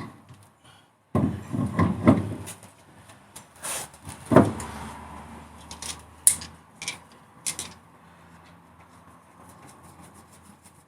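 Clunks and knocks of a car wheel being handled and offered onto the hub. There is a run of heavy thuds in the first two seconds and a louder knock with a brief ring about four seconds in. Three sharp metallic clicks follow a couple of seconds later, and then quieter fumbling.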